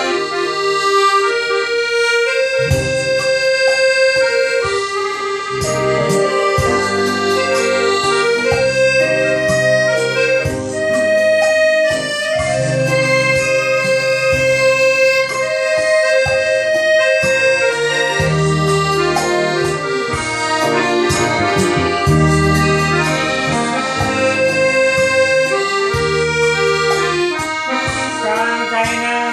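Piano accordion and a Yamaha Electone electronic organ playing a tune together, the accordion's reedy held notes carrying the melody over the organ's bass and chords.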